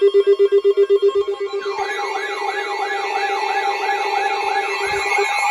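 Electronic alarm tones: a tone pulsing rapidly, about eight times a second, then about a second and a half in a warbling siren-like tone joins, sweeping up and down about three times a second, and takes over.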